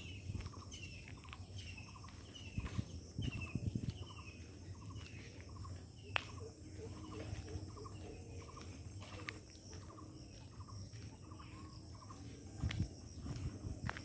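A bird calls over and over, a short falling chirp about twice a second, over a steady high-pitched drone of insects. A few low thumps of footsteps come about three seconds in and again near the end.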